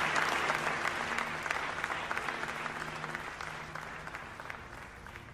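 A crowd of people applauding, the clapping thinning and fading away steadily.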